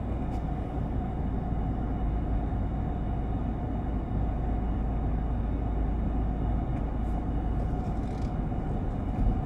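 Steady road and engine noise of a car being driven, heard inside the cabin.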